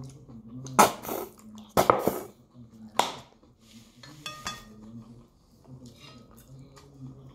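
A metal fork scraping and knocking against a ceramic plate as food is picked up: a few sharp scrapes in the first three seconds and a short ringing clink a little after four seconds, over a low steady hum.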